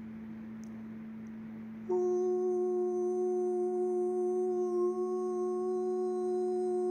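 Vocal toning: a single long, steady held tone sung without words, which comes in suddenly about two seconds in over a continuous lower drone.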